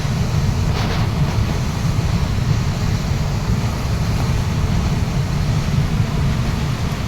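Waterfall roaring steadily, a constant rush of falling water with a heavy low rumble.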